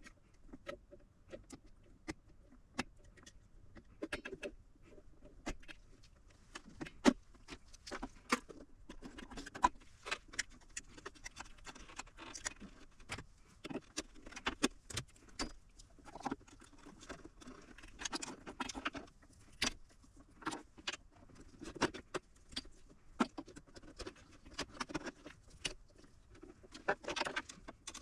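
Scattered clicks, taps and short rattles of hands handling a portable power station's case, screws and small parts while it is taken apart.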